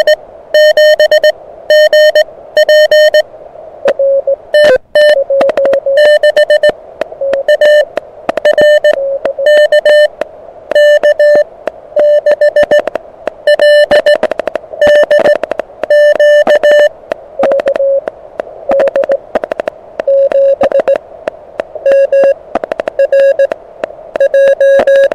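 Morse code (CW) from a portable ham radio transceiver: a single tone keyed on and off in dots and dashes, at two slightly different pitches that trade back and forth as contacts are exchanged.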